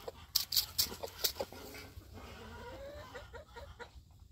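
Chickens clucking softly, with several sharp clicks and rustles in the first second and a half.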